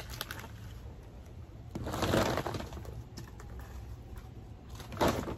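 Wild bamboo shoots being handled and peeled in a plastic basin: light clicking and rustling of the stalks, with a louder rustle of about a second near two seconds in and a sharp crack near five seconds in.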